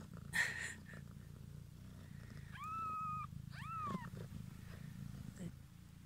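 Mother cat purring steadily as her newborn kittens nurse, with a brief loud rustle near the start. A little past halfway a newborn kitten gives two high mews, the first held flat, the second rising and falling.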